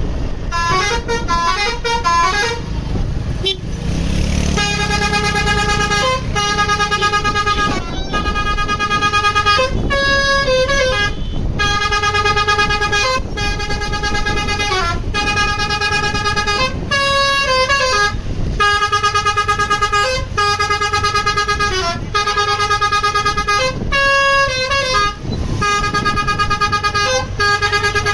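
Indonesian bus 'telolet' Basuri multi-tone air horn playing a melody, over the rumble of the bus's engine. It opens with quick rising and falling notes, then settles into a repeating tune of held notes broken by short gaps.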